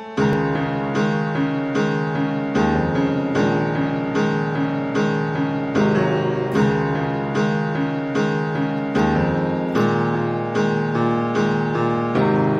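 Background music played on a keyboard instrument, with notes struck at an even, steady pace of about one and a half a second.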